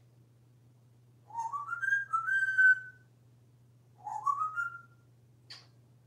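African grey parrot whistling: a rising whistle about a second in that climbs and then holds a high note, and a second, shorter rising whistle about four seconds in. A single short click near the end.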